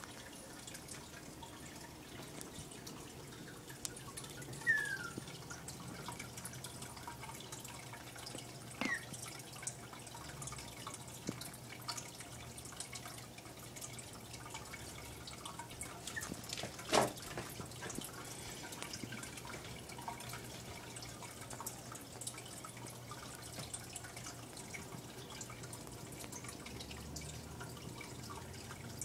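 Water dripping and trickling in an aquarium tank over a low steady hum, with a few louder drops that fall slightly in pitch. A single sharp knock comes a little past halfway.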